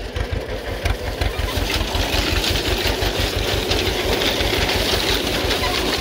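1943 John Deere B's two-cylinder engine running with a steady low, even pulse, under the clatter of a McCormick grain binder's mechanism working.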